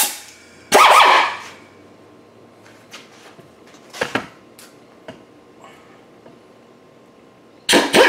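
Pneumatic sanding tool: a short burst of air noise about a second in, then a few light knocks and clicks of the tool being handled, and near the end the tool starts up again with a steady high whine.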